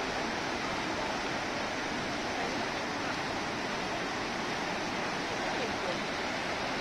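Steady rushing of a mountain waterfall cascade pouring down a rocky gorge.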